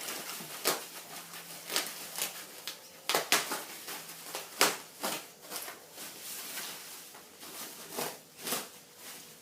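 Packaging being handled by hand: an uneven string of crinkles, taps and knocks, a few louder ones a few seconds in.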